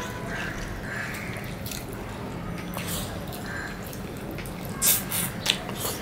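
Close-miked wet eating sounds of people eating rice and curry by hand: chewing, and short moist lip smacks and mouth clicks, with a louder run of smacks about five seconds in.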